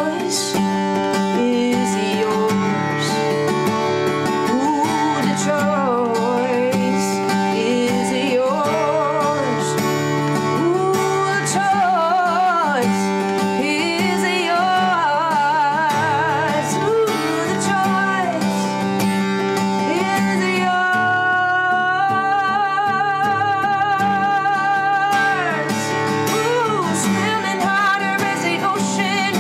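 A solo acoustic guitar song: a woman singing over her own acoustic guitar accompaniment, with a long held sung note with vibrato about three-quarters of the way through.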